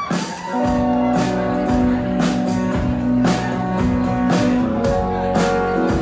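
Live band music: an acoustic guitar plays over a bass line and drums. The band comes in about half a second in, and there is no singing yet.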